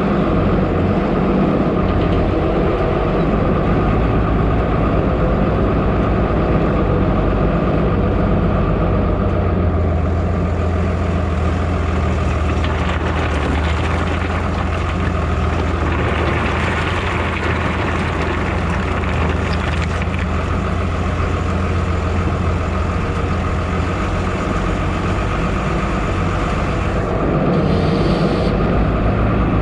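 Diesel tractor engine running steadily as the front-end loader works, with crushed concrete rock rattling out of the tipped bucket partway through. The engine gets louder near the end.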